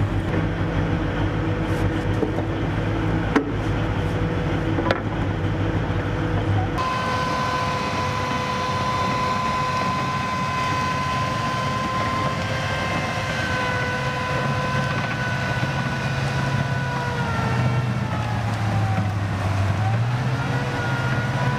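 AAV7 amphibious assault vehicles running. First, the low, steady engine drone of a vehicle swimming at sea. Then, about seven seconds in, tracked AAVs are driving on sand with a steady high-pitched whine that dips and then rises again near the end.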